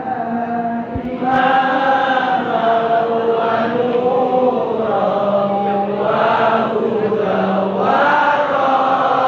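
A large group of students chanting together in unison, in long held notes that shift in pitch.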